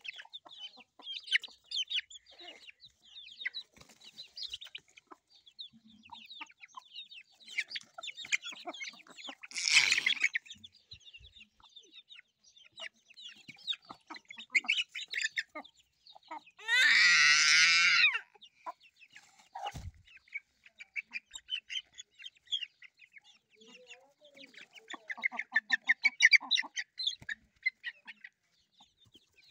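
Domestic hens clucking and chicks peeping as they peck around, in many short high calls. A loud burst comes about a third of the way in, a longer loud call a little past halfway, and a quick run of rapid calls near the end.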